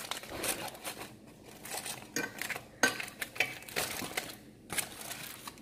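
Aluminium foil crinkling as it is pulled off a cooking pot, with irregular clinks of metal against the pot.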